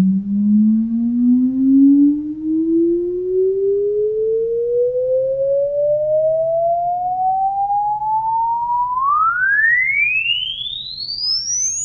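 A pure sine-wave test tone sweeping upward in pitch, played back to check the microphone's frequency response. It rises slowly from a low hum, then climbs much faster about nine seconds in and ends as a very high whistle. It is recorded through a GoPro Hero 3 in its skeleton housing.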